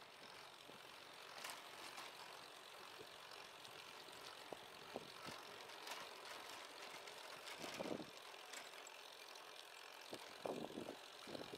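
Bicycle rolling along a paved path: a faint steady hiss with scattered light clicks and rattles. Brief louder gusts come about eight seconds in and again near the end.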